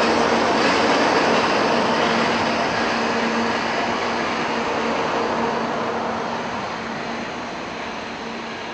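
Hikari Rail Star Shinkansen train running along the platform and drawing away: a steady rushing roll with a low hum through it, fading gradually toward the end.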